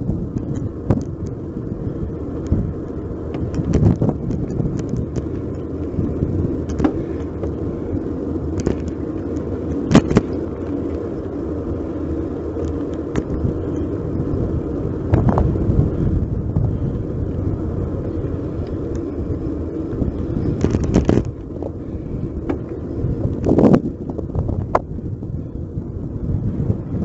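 Riding a bicycle with a handlebar-mounted action camera: steady wind rumble on the microphone and road noise, with frequent sharp clicks and rattles from the bike and mount over the road surface and a few louder knocks scattered through.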